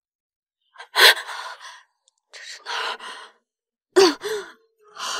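A wounded young woman's gasping breaths, four in a row, with a short voiced moan about four seconds in.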